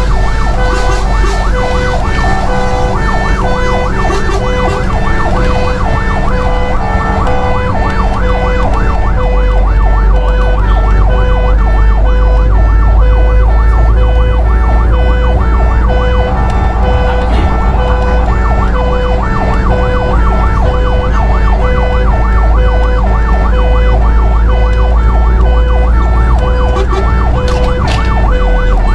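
Fire engine siren sounding continuously in repeating stepped tones, heard from inside the truck's cab, over the steady low rumble of the truck's engine and tyres on the road.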